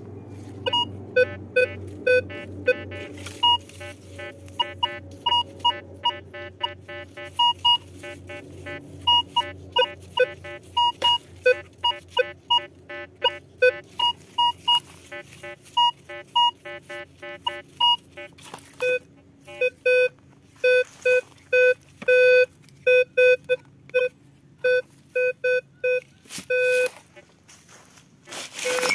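Metal detector beeping as its coil is swept over the ground: many short tones at irregular intervals, at a higher and a lower pitch. The lower tone grows louder and more frequent in the second half.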